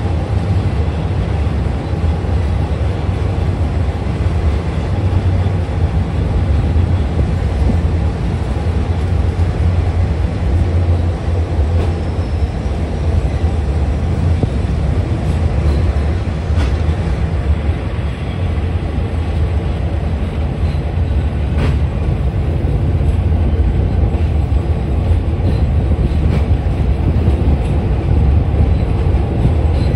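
Passenger train of a State Railway of Thailand rapid service running steadily on an elevated track, heard from an open window of a carriage. The wheels on the rails make a continuous low rumble, with a couple of sharp clicks in the second half.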